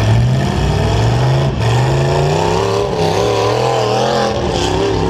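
Several trucks' engines revving together, their pitches rising and falling as they speed up and ease off.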